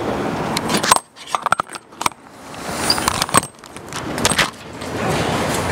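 Handling noise from a clip-on lavalier microphone being unclipped and taken off a shirt: a run of sharp clicks and knocks with rustling between them.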